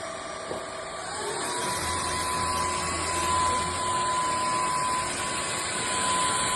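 Cordless stick vacuum cleaner's motor speeding up about a second in, its pitch gliding up and the level rising, then holding a steady high whine over a wide rushing hiss.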